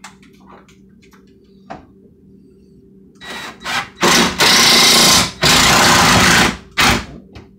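Cordless driver driving screws into a kitchen cabinet: a few short spurts about three seconds in, then two loud runs of about a second each, and a last brief spurt near the end.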